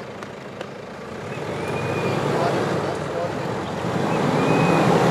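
Toyota Hilux engine revving under load as the 4WD climbs a steep dirt track. It swells twice, loudest near the end.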